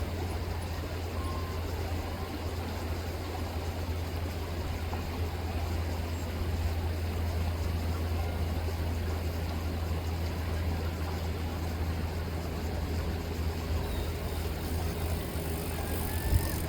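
Steady low motor hum, like an idling engine, over the even rush of rippling river water. A couple of faint gull calls come near the end.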